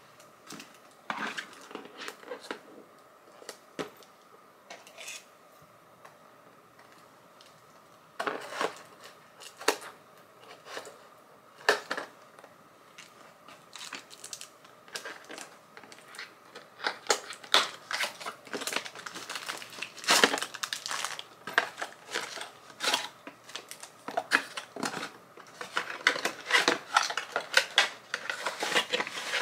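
Cardboard product box being handled and opened: scattered taps, scrapes and rustles of cardboard and packaging, sparse at first and busier in the second half.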